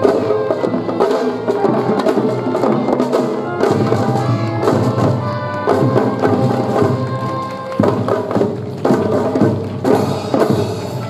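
Children's drum-and-fife band playing: drum strokes in a steady beat under held melodic notes from the band's instruments.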